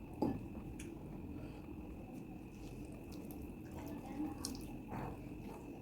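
Soft wet eating sounds of chicken curry with rice: scattered small clicks and squishes, with one louder short smack near the start. A faint steady high tone hums underneath.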